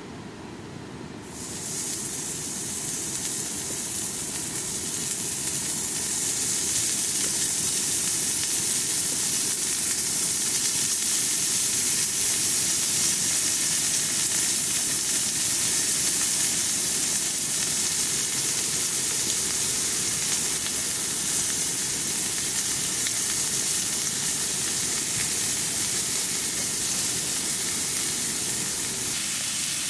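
Beef chuck flap sizzling on a hot pan. The sizzle starts suddenly about a second in and keeps going steadily over a low, even rush.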